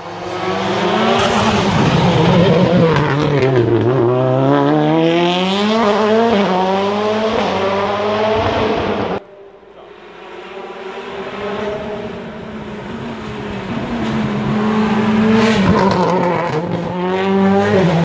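Skoda Fabia rally car's engine racing at full throttle, heard in two passes cut together. In the first, the revs drop sharply under braking and climb again in steps through the gears. After a sudden cut about halfway, the revs rise again, hold high and stop abruptly at the end.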